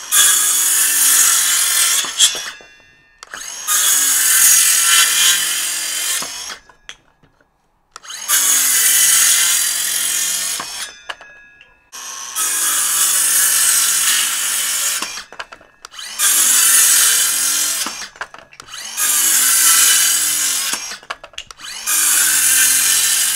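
Milwaukee M18 cordless 6-1/2-inch circular saw cutting a pine 2x4, run in about seven bursts of two to three seconds with short pauses between, each loudest at the start and falling off toward its end. The owner finds the cut good but thinks the saw needs more RPM.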